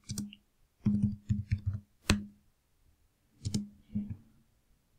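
Computer keyboard being typed on in short bursts of keystrokes with brief pauses between them, the quickest run of about half a dozen keys coming about a second in.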